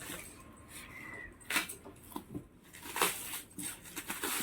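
Parcel packaging being cut open with scissors: scattered snips, crinkles and rustles of the wrapping, loudest about a third and two thirds of the way through.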